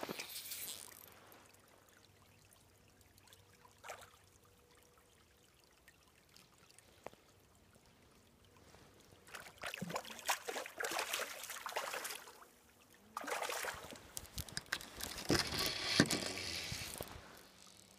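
Water splashing and trickling in a small brook, in irregular stretches of a few seconds: quiet at first, then about ten seconds in and again from about thirteen seconds.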